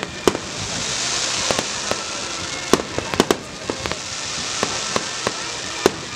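Fireworks going off: an irregular string of sharp pops and bangs, bunched several to a second around the middle, over a steady hiss.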